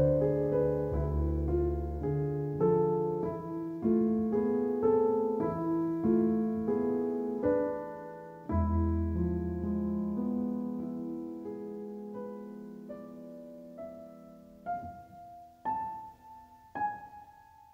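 Calm solo piano music: a flowing run of single notes over deep bass notes, thinning out to a few isolated notes near the end.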